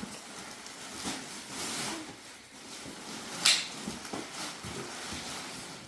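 Faint rustling and light handling clicks, with one sharp crackle about three and a half seconds in.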